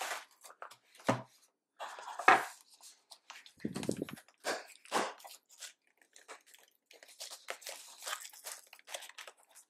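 A cardboard shipping box and its packing tape being handled and picked open by hand: irregular scraping, crinkling and tearing, with a sharp knock about two seconds in and a dull thump around four seconds.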